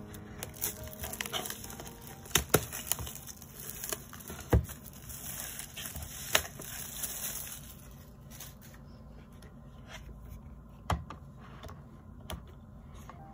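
Clear plastic shrink wrap crinkling and crackling, with sharp snaps, as it is peeled off a boxed CD album. The handling grows quieter about eight seconds in.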